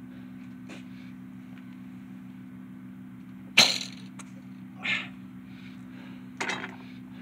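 A compound bow being shot: the string releases with one sharp crack about three and a half seconds in, the loudest sound here. Two softer knocks follow over the next three seconds.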